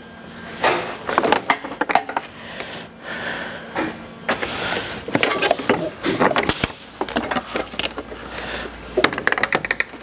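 Irregular clicks, knocks and rustling of hands pulling at and handling plastic trim and parts in a car's stripped front end.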